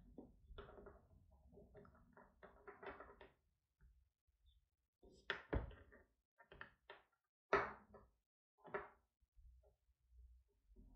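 Nylon paracord strands rubbing and sliding through a diamond knot as they are pulled tight by hand: faint scratchy rustling at first, then a handful of sharper short scrapes and taps around the middle.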